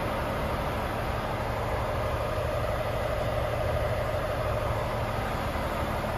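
Volvo FH 540's 13-litre straight-six diesel idling steadily in neutral, heard from inside the cab.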